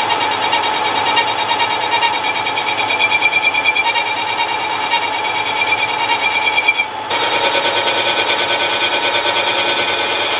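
Mini lathe running and turning a chamfer on the edge of a 100-tooth aluminium gear, a steady whine with a fine rapid pulsing. About seven seconds in the sound switches abruptly to a slightly different steady machining tone.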